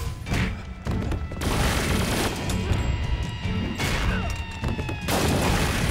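Action-film soundtrack: music with a low pulse under several sudden crashes and hits from a fight, the last one, near the end, lasting longer than the others.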